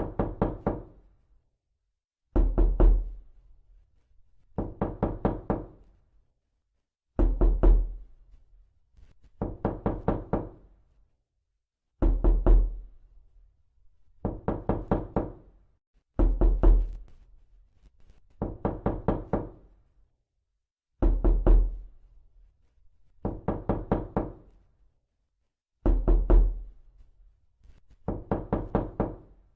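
Knocking: quick sets of four or five raps, each set fading away, repeated about every two and a half seconds.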